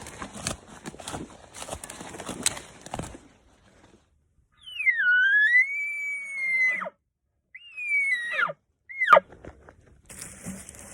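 Elk bugle: a long high whistle that dips, then holds for about two seconds before breaking off, followed by two shorter falling whistle notes. Before it, a few seconds of rustling footsteps in dry brush.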